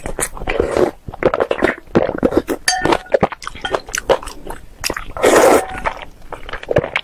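A person eating noodle soup: sipping broth from a spoon and slurping noodles, with wet chewing and small clinks of the spoon and chopsticks against the bowl. The longest, loudest slurp comes about five seconds in.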